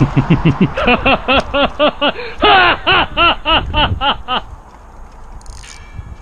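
A man laughing close to the microphone, a quick string of 'ha-ha' syllables that goes on for about four seconds and then stops.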